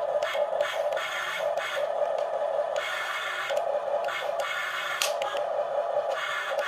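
Small electric gear motors of a Huina 1550 toy RC excavator whirring in short stop-start runs as the arm and bucket are worked, with a sharp click or scrape about five seconds in.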